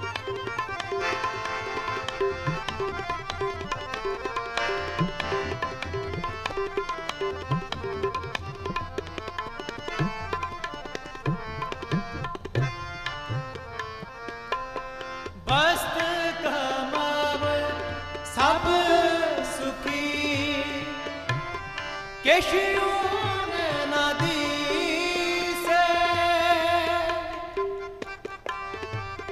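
Sikh kirtan: tabla and harmoniums play an instrumental passage with a steady tabla rhythm. About halfway through, singing voices come in over them in long, gliding phrases, three in a row, before dropping back to the instruments near the end.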